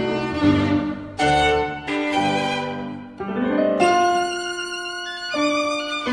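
Background music: a slow violin melody of long held notes with vibrato, changing roughly every second, over a soft string accompaniment.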